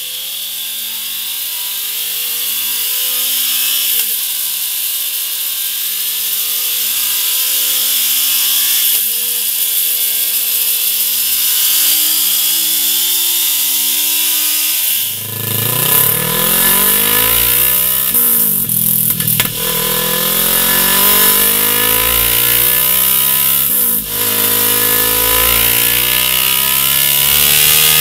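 Kawasaki Z650's 649 cc parallel-twin engine revving up through the gears, the revs climbing and dropping back at each upshift, first through the stock exhaust. About halfway through it switches to a MIVV GP Pro aftermarket full exhaust system, which gives a louder, deeper note.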